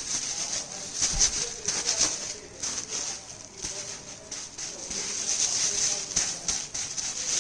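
Cloth rubbing back and forth over a bicycle disc brake rotor, a scratchy hiss in many short strokes, as the rotor is wiped with isopropyl alcohol to clear off sanding dust.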